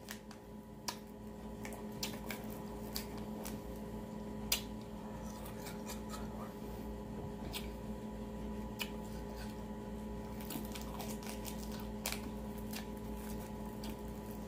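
Mouth noises from eating a frozen ice pop out of its plastic sleeve: wet sucking with scattered small sharp clicks and crinkles from bites and the plastic tube. A steady hum runs underneath.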